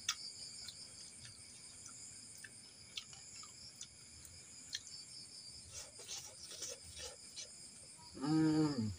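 Crickets chirping steadily at night, with a few faint crunching clicks as fried banana-stem chips are chewed. Near the end a man gives a loud, drawn-out appreciative "mmm" whose pitch rises and then falls.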